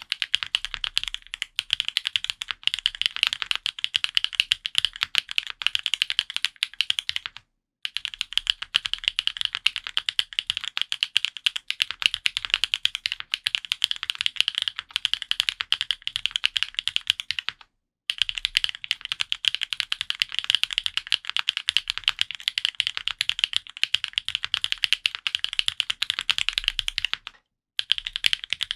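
Fast, continuous typing on an F1-8X custom mechanical keyboard with Gateron Pure Sky and Pure Berry switches: a dense stream of crisp key clacks, stopping briefly three times.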